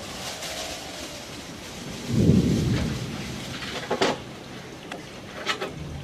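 Low rumble of distant thunder, about two seconds in and lasting a second or so, over a steady hiss of an approaching rainstorm. Two short, sharp sounds come later.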